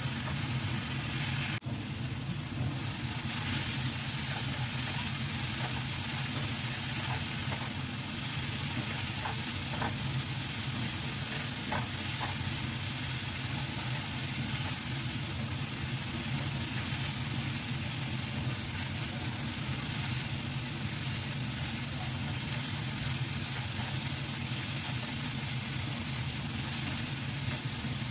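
Ground spice paste sizzling steadily as it is sautéed in oil in a nonstick frying pan, being cooked down until fragrant. A silicone spatula stirs and scrapes through it, over a steady low hum.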